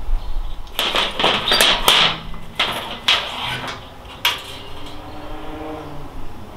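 Hard metal and plastic faucet parts clattering and clinking as they are handled and taken apart: a quick run of knocks for about two and a half seconds, then one more sharp knock about four seconds in.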